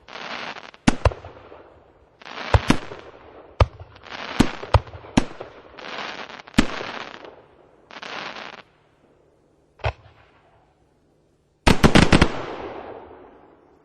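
Festival II Box consumer firework battery firing: single sharp bangs of bursting shots alternating with hissing bursts about a second long, then a quick volley of several bangs near the end, fading away afterwards.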